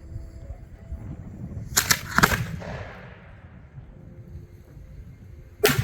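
Aerial firework display shell: a sharp double report about two seconds in as it is fired from the mortar, then a louder bang near the end as the shell bursts, trailing off in a rumbling echo.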